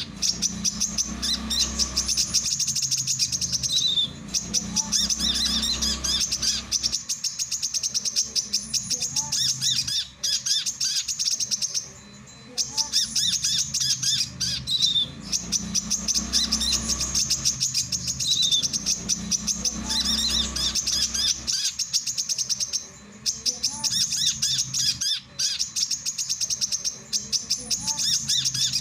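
Male brown-throated sunbird singing: a rapid, high twittering chatter in long repeated phrases, broken by brief pauses.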